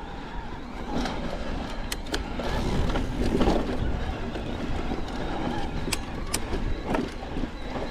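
Electric mountain bike riding up a rough dirt trail: a steady rumble of tyres and rattling bike parts, with a few sharp clicks and knocks from the bike.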